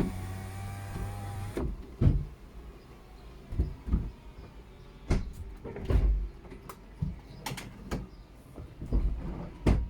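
VW Eos folding hardtop opening on battery power with the ignition on and the engine off. An electric motor hums steadily and stops about one and a half seconds in, then a series of clunks and knocks follows as the roof mechanism works.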